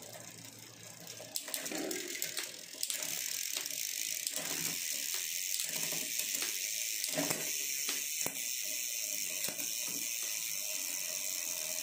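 Bicycle rear drivetrain spinning on a stand: the freehub ratchet ticks as the wheel turns, the KMC 12-speed chain runs over a ZTTO 12-speed cassette, and a few sharper clicks come as the SLX rear derailleur shifts. The chain runs quietly, without rubbing or chain noise, which fits a good chain-to-cassette match.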